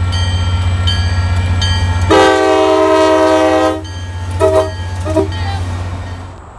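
MBTA MP36PH-3C diesel locomotive passing close by at a grade crossing: its engine running with a deep rumble and a bell dinging about once a second, then the multi-note horn sounds one long blast followed by two short toots.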